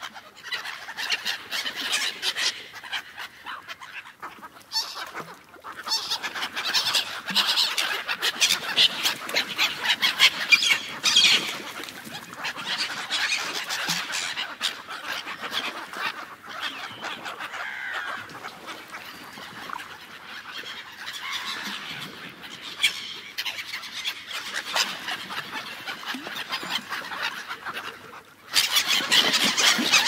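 A large flock of gulls calling together in a dense, continuous chorus of overlapping squawks, in a feeding frenzy over a netted catch of sardines. Near the end the sound turns suddenly louder.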